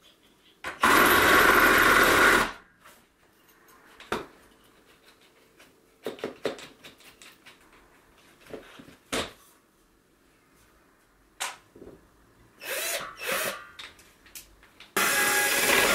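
Cordless drill driving screws into a wooden tabletop, running in a steady burst about a second in and again near the end. Between the runs come short clicks and knocks from handling screws and metal brackets, with two brief blips of the drill near the end.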